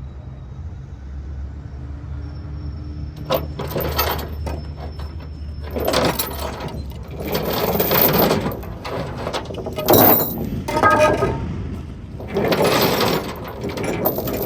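Metal chain rattling and clanking in several bursts with sharp clinks, as load-securement chain is handled on the trailer. A low steady hum sits under the first few seconds.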